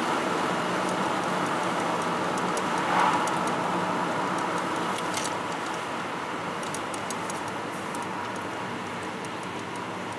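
Steady road and engine noise heard inside a car towing a caravan, with a brief louder rush about three seconds in and scattered light ticks in the second half.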